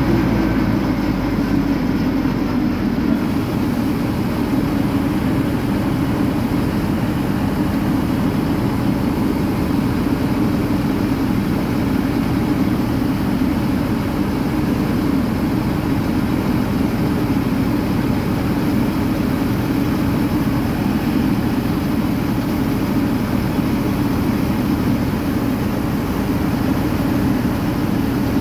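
Deutz-Fahr combine harvester running steadily with its unloading auger turning, pouring grain into a trailer: a constant loud engine and machinery drone with a strong low hum.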